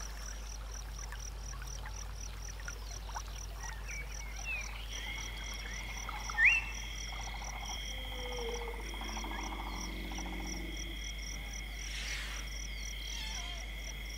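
Wetland night chorus of insects and frogs: an insect chirps steadily about three times a second, two steady high trills join about five seconds in, and short scattered calls come and go, one briefly louder about six and a half seconds in.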